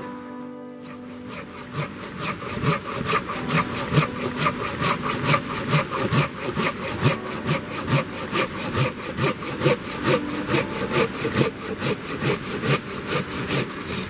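Folding hand saw cutting through a mossy fallen log in quick, even back-and-forth strokes, about three a second, starting about a second in.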